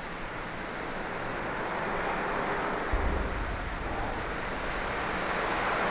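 Red River floodwater rushing and swirling past a concrete bridge pier, a steady rushing noise that grows slightly louder. Wind buffets the microphone from about three seconds in.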